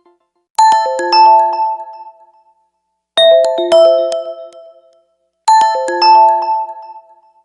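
A Windows 10 system sound: a short bell-like chime of a few quick notes, ringing and fading, played three times in a row.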